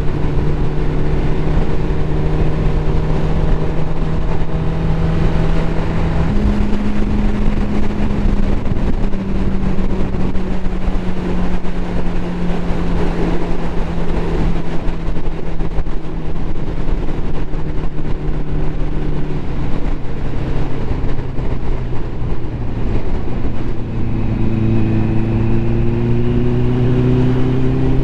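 Ducati motorcycle engine running on the road with wind rush. The engine speed jumps up suddenly about six seconds in, then slowly falls away, and climbs steadily again under acceleration near the end.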